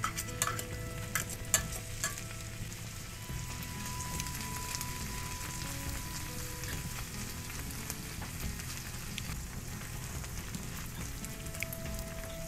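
Onions and canned tuna sizzling in butter in a nonstick frying pan while being stirred with a wooden spatula. A few sharp clicks and knocks in the first two seconds, then a steady sizzle.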